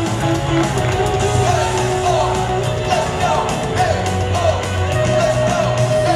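Upbeat stadium cheer song played loud over the ballpark speakers, with singing and the crowd yelling along.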